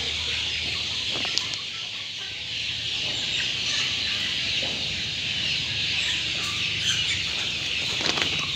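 A brood of many baby chicks peeping together, a steady dense high-pitched chirping chorus with no pauses.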